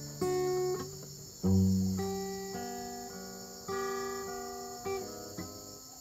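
Background music of slow plucked guitar notes, each ringing and fading, over a steady high chirring.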